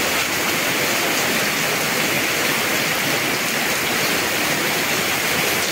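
Heavy tropical downpour: rain falling hard and steadily, an even, unbroken hiss.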